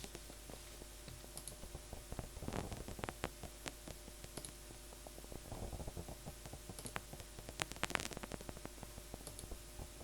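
Synthesized paper-crumpling effect from the Vital soft synth, driven by generated MIDI notes: a quiet, irregular stream of small clicks and crackles, with a few sharper ticks about eight seconds in.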